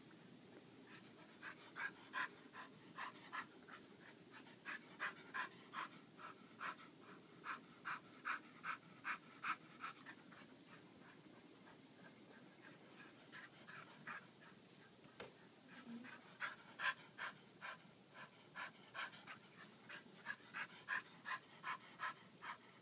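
Puppy panting rapidly and rhythmically, about two to three breaths a second, in runs that ease off for a few seconds midway and then pick up again.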